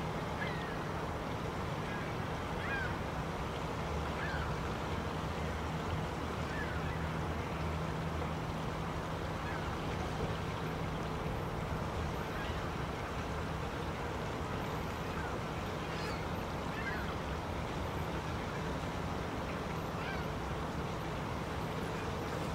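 Canada geese giving a few short, faint calls now and then, over a steady low hum and hiss.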